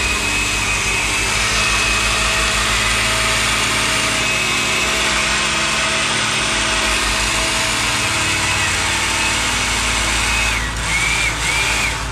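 Osterizer blender motor running at speed, churning a thick chocolate milkshake mixture in the glass jar. The motor note wavers briefly and picks up again shortly before it stops.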